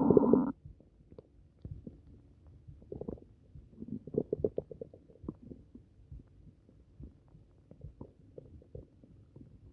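Upset human stomach rumbling and gurgling. A loud growl cuts off about half a second in, then comes a run of short, irregular gurgles and bubbly pops, densest about four to five seconds in, which the owner puts down to something eaten.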